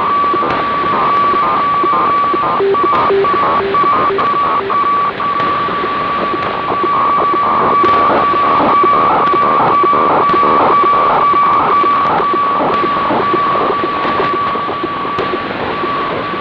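HF weather-fax (radiofax) signal received in upper sideband on a Grundig 750 shortwave receiver: a steady tone chopped by rapid, even, rhythmic pulses over static hiss.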